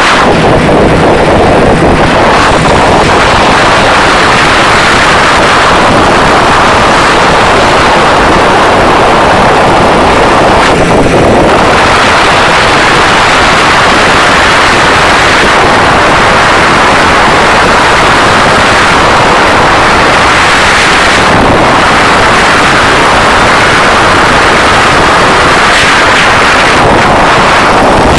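Engine and rushing wind in the open seat of an ultralight aircraft in flight: a loud, steady roar, with the wind buffeting the microphone.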